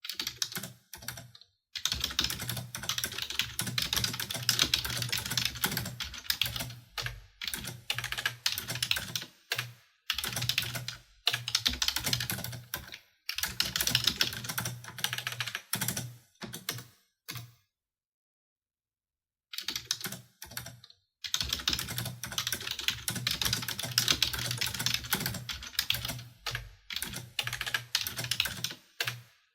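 Computer keyboard typing in quick runs of key clicks, broken by short pauses and one silent gap of about two seconds a little past the middle.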